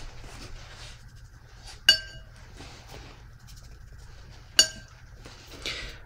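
A paintbrush clinking against a glass water jar twice, about two seconds in and again near five seconds, each tap ringing briefly. Faint soft brushing in between.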